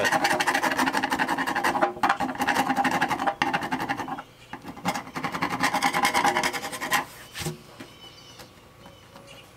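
Flathead screwdriver scraping old Wetlander bottom coating off a riveted metal jon boat hull in rapid rasping strokes. The scraping comes in two runs, the second stopping about seven seconds in, followed by a couple of taps.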